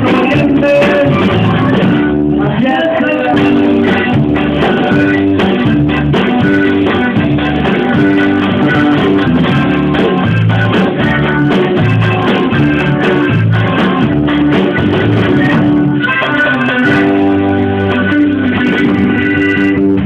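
A live band playing loud instrumental music: guitars, bass guitar and drum kit, with held notes over a steady beat.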